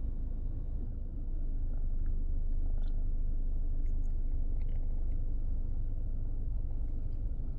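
Steady low rumble of a running car heard inside the cabin, with a few faint small wet clicks of a kitten licking whipped cream.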